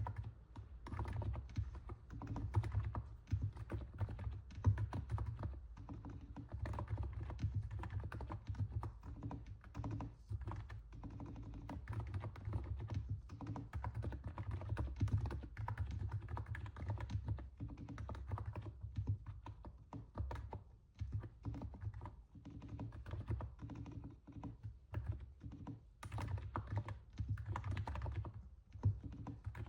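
Continuous typing on a NiZ 68 Pro electrostatic capacitive keyboard: a dense, uneven run of keystrokes with the soft sound likened to stepping on snow, broken by a few brief pauses.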